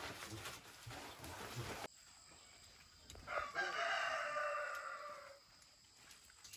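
A rooster crowing once: a single drawn-out call of about two seconds, about halfway through, dropping slightly in pitch as it ends.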